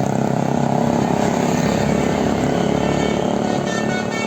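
Road traffic passing close by: the steady, loud running of vehicle engines and tyre noise.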